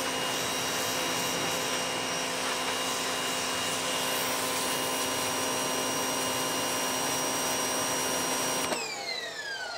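Westinghouse ePX3000 electric pressure washer running under load with a steady motor whine and the hiss of a hard jet of water from the narrow zero-degree tip. Near the end the trigger is let go: the spray stops and the motor whine falls in pitch as the pump spins down.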